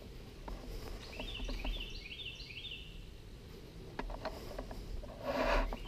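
A songbird calling: a quick run of short, falling high chirps starting about a second in and lasting about two seconds. Later come a few light ticks and a brief, louder rustle near the end.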